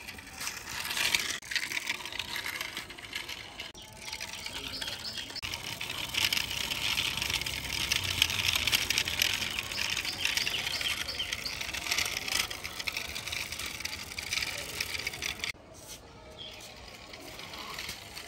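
Toy cement mixer truck pushed by hand along rough concrete, its plastic wheels giving a gritty rolling rattle. It cuts off abruptly about 15 seconds in.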